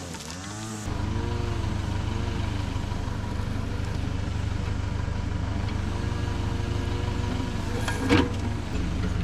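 Heavy equipment engine running at work, its pitch rising and falling repeatedly; it comes in about a second in. A single sharp knock sounds near the end.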